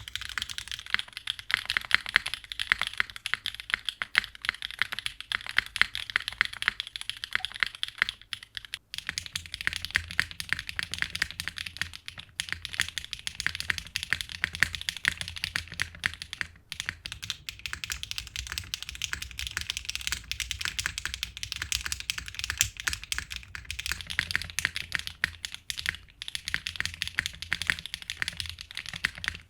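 Fast, continuous typing on a mechanical keyboard, a dense stream of key clicks with a few brief pauses. After a short break about nine seconds in, the strokes have a deeper low end.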